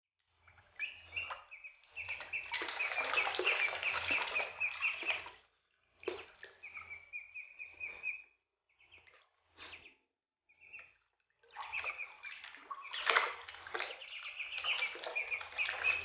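Ducklings peeping in quick, repeated chirps while water splashes and sloshes in a plastic basin as a puppy paws and noses at them. It comes in bouts, loudest a couple of seconds in and again near the end, with quiet gaps between.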